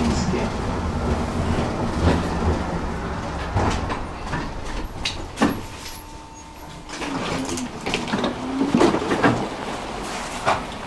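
Electric tram running on rails. The rumble of wheels and motors fades over the first several seconds as it slows almost to a stop, with scattered clicks and knocks. About seven seconds in, a motor whine rises in pitch as it picks up speed again.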